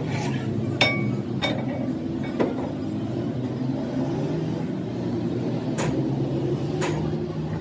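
A steady, engine-like hum with about six sharp metallic clinks and knocks over it. The loudest comes just under a second in and rings briefly.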